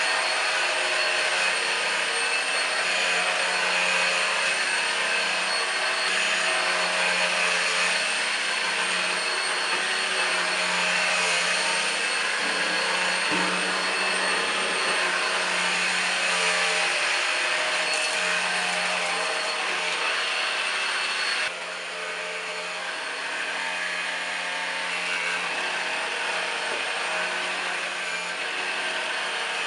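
Numatic Henry Quick cordless stick vacuum running with a steady motor whine and suction noise. About two-thirds of the way through it drops abruptly to a somewhat quieter level and keeps running.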